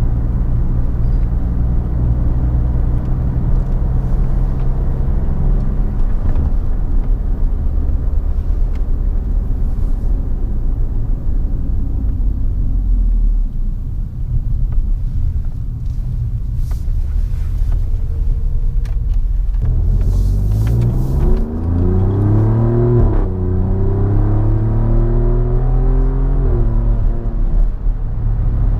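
Alfa Romeo Giulia Quadrifoglio's twin-turbo V6, fitted with an X-pipe in place of the stock resonated mid-pipe, heard from inside the cabin. It runs steadily at cruise for the first two-thirds. Then it accelerates, the pitch climbing in a few steps with quick upshifts between them.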